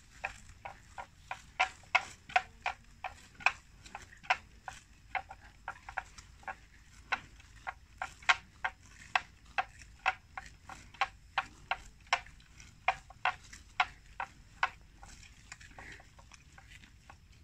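Water buffalo chewing mouthfuls of marsh plants: crisp, crunching clicks at about two or three a second, stopping about fifteen seconds in.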